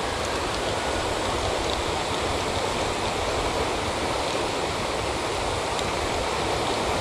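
Shallow river running over a gravel bed: a steady, even rush of flowing water.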